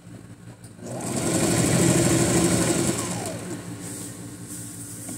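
White Singer electric sewing machine stitching at a fast, even rate for about two seconds, starting about a second in, then the motor winding down with a falling whine.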